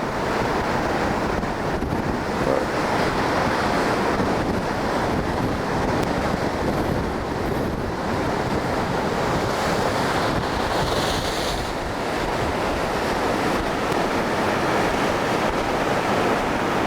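Rough surf from a tropical storm's swell breaking against the beach and pier pilings, with strong wind blowing across the microphone.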